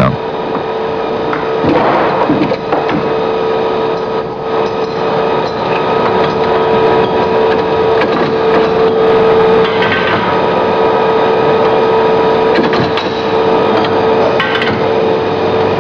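Workshop machinery running with a steady hum. Knocks and clatter of small metal parts being handled come through now and then, a few of them sharp.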